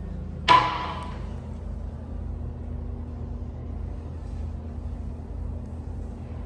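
A single sharp metallic clank with a brief ringing tail, about half a second in, over a steady low hum.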